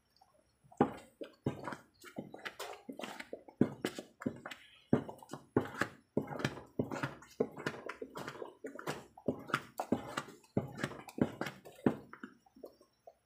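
A spatula stirring and folding thick ube halaya (mashed purple yam paste) in a pan: irregular knocks and wet squelches, a few each second, starting about a second in and stopping shortly before the end.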